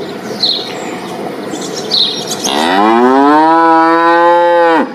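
A dairy cow mooing: one long call that rises in pitch and then holds steady for about two seconds. Before it there is a breathy, noisy stretch with two brief high chirps.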